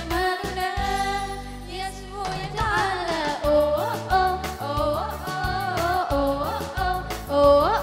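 Female voices singing a melody into microphones over a keyboard backing, with a bass line and a steady beat.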